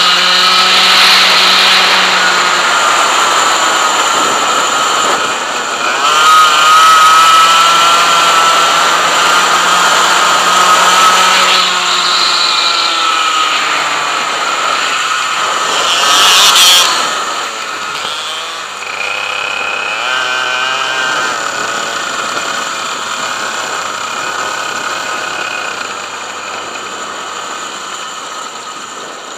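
100cc two-stroke kart engine at racing revs, its pitch dipping as the kart lifts off for corners and climbing back on the throttle, with a short loud burst about 16 seconds in. After that it falls to lower, quieter, steadier revs as the kart slows.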